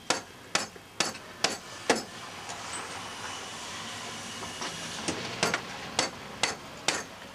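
Hammer driving nails into treated lumber deck boards, struck about twice a second in two runs, with a steady hiss in the pause between them.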